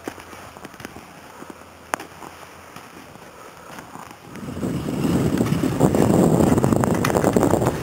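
Quiet outdoor background with a few faint clicks, then from about halfway a loud, steady rush of wind on the microphone while skiing down a slope.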